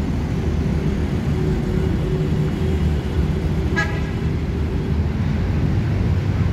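Steady road-traffic rumble with a short vehicle horn toot about four seconds in.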